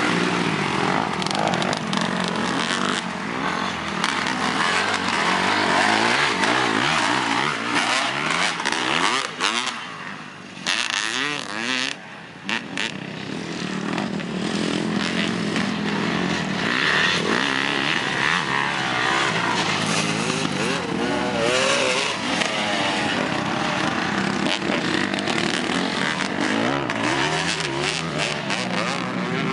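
Several motocross dirt bikes revving up and down around the track, their engine pitch rising and falling with throttle and gear changes. The sound drops off briefly about ten seconds in before the bikes come back up to full throttle.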